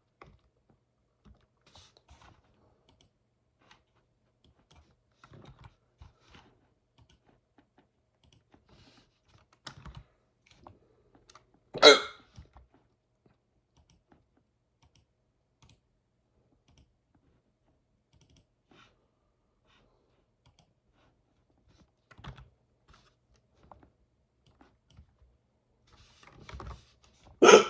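A person's hiccups: two short, loud hics about fifteen seconds apart, one near the middle and one at the very end. Between them there is light computer-keyboard typing and clicking.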